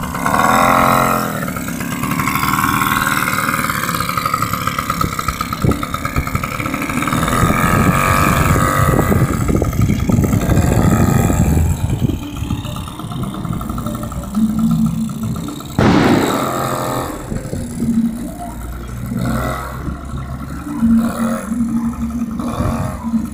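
Suzuki LT50 quad's small two-stroke engine running as it is ridden, the revs rising and falling; it grows quieter after about halfway as the quad moves off.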